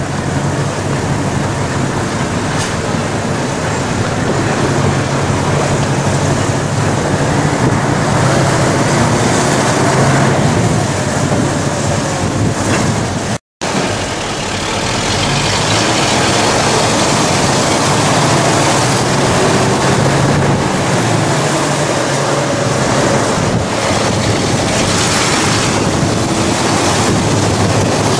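Engine and road noise from inside a moving vehicle, with a steady low hum and the engine note slowly rising and falling. It cuts out abruptly for a moment about halfway through, then resumes.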